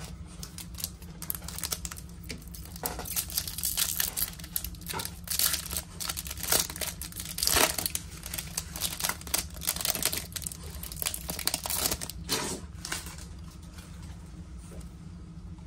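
The wrapper of a Topps baseball card pack being torn open by hand, with irregular crinkling and crackling that is busiest in the middle and dies down to lighter handling as the stack of cards comes out.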